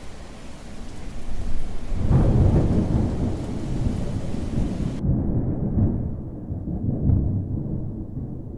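Thunder over rain hiss: a loud low rumble breaks in about two seconds in and rolls on. The high hiss of the rain cuts off abruptly about five seconds in.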